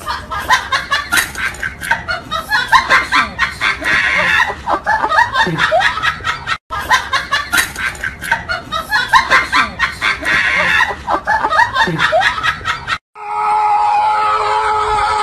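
Rapid, snickering laughter: fast bursts of giggling. The stretch plays through twice with a brief break in the middle. It cuts off near the end, and a different steady sound follows.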